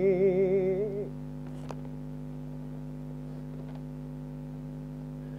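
A man's voice holding the last sung note of a chanted Swahili poem line, with a wavering vibrato, trailing off about a second in. After that only a steady low electrical hum remains, with one faint click partway through.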